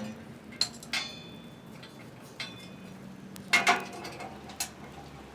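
Metal grill parts clinking and knocking as they are handled and fitted together during assembly: a handful of sharp knocks, some with a brief metallic ring, the loudest two close together about three and a half seconds in.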